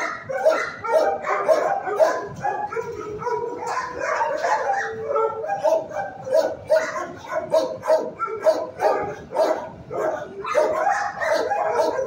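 Kennelled shelter dogs barking, overlapping barks coming several a second without a break. A drawn-out howl is held from about three to five seconds in.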